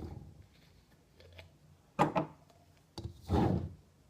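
Clear glue bottle handled and poured into a bowl: a low thud at the start, a sharp knock about two seconds in, then a louder low noise lasting about half a second just after three seconds.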